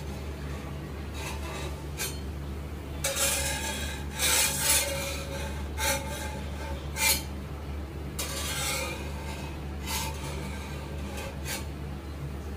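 Metal spatula scraping against a cast iron tawa in a run of irregular rasping strokes, working under a dosa to loosen it from the pan.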